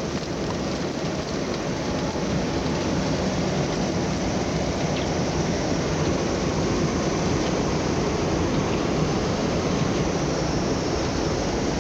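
Blizzard wind blowing across a camcorder microphone: a steady rushing noise with a deep rumble underneath.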